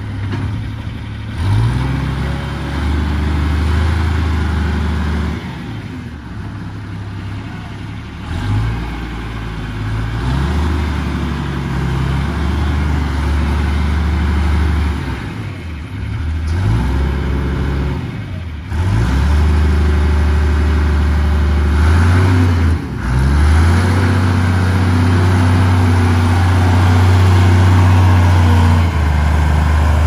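John Deere wheel loader's diesel engine working, revving up and down several times. In the last third it is held at steady higher revs and gets louder as the loader comes close.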